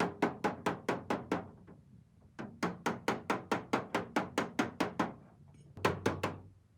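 Hammer tapping rapidly on the sheet metal of a car hood to work out a dent, about five blows a second, in three runs with short pauses between.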